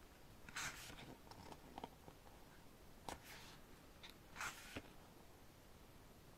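Paper pages of a hardcover photobook being turned by hand: soft, brief page swishes, about half a second in, about three seconds in and about four and a half seconds in, with faint paper ticks between.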